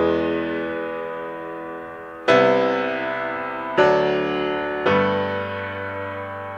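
Background music: slow piano chords, a new chord struck every one to two seconds and left to ring and fade.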